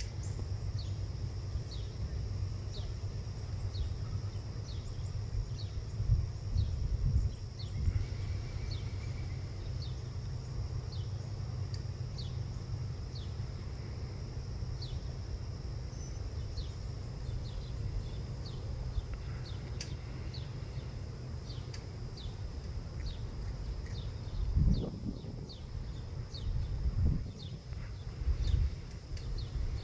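A small animal's high, short chirp, repeated about once a second, over a steady high whine that stops about halfway through. Underneath is a low rumble with a few louder thumps near the end.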